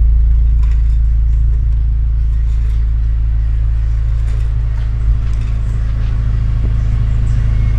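Car engine idling with a steady low rumble, and a brief thump about five seconds in.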